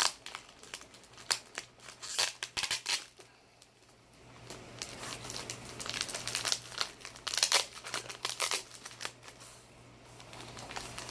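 Packaging being handled and torn open to unbox an ordered item: irregular crinkling, rustling and tearing, in bursts with a brief lull about four seconds in.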